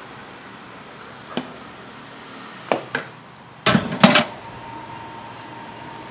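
Sharp metal knocks and clanks of a utensil striking a stainless steel pot, a few single knocks and then a loud ringing cluster of clanks about four seconds in.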